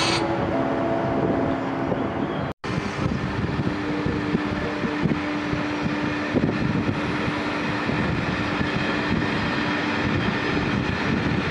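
Two class 123 electric locomotives standing with their auxiliary machinery running before setting off: a steady mechanical hum with a held tone. The sound drops out briefly about two and a half seconds in.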